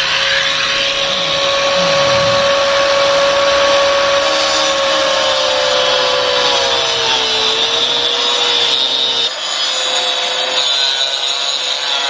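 Corded angle grinder running at full speed and cutting the PVC drain pipe down in the concrete floor, a steady high whine whose pitch sags about two-thirds of the way in as the disc bites.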